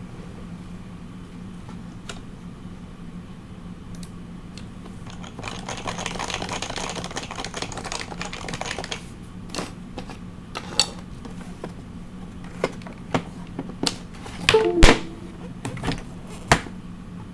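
Typing on a stock HHKB Professional 2 keyboard with Topre switches: a few seconds of fast, dense keystrokes, then slower, scattered single key presses, several of them louder near the end. A steady low hum sits underneath.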